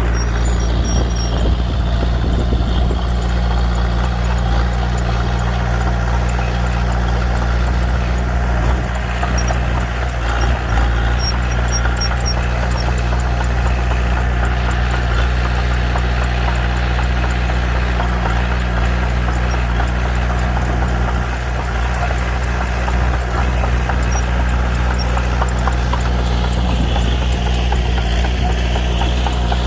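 Diesel engine of a Komatsu D21P small crawler bulldozer running steadily at a constant pitch, with light clicking over it.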